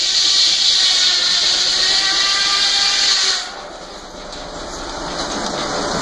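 A loud steady hiss cuts off suddenly about three and a half seconds in. After that, the Frick sawmill's circular saw carries on and grows steadily louder as it cuts into the log.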